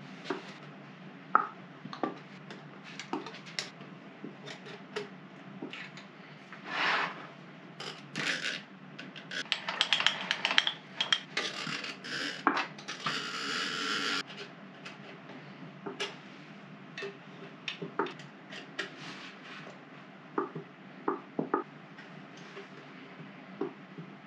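Scattered metallic clicks and taps as an oil can's spout is worked around the oil points of a 1921 Dalton B4 metal lathe. A longer stretch of scraping and rustling comes about ten to fourteen seconds in.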